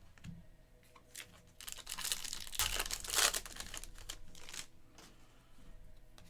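Trading-card pack wrapper being torn open and crinkled by hand, a crackling stretch through the middle, loudest about three seconds in.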